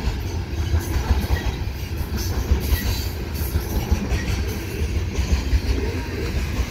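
Loaded coal train's aluminum coal gondolas rolling past: a steady heavy rumble of steel wheels on rail, with irregular clacks as the wheels cross rail joints.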